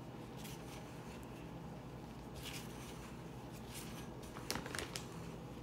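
Gloved hand mixing and rubbing crumbly flour dough in a glass bowl: faint scraping and rustling, with a few sharper clicks about four and a half seconds in.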